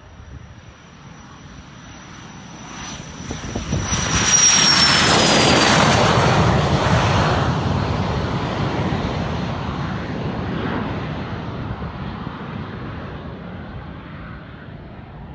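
Cessna 510 Citation Mustang's twin Pratt & Whitney PW615F turbofans at takeoff power: a high whine growing louder as the jet accelerates down the runway, dropping in pitch as it passes about four seconds in, then a rumble slowly fading as it climbs away.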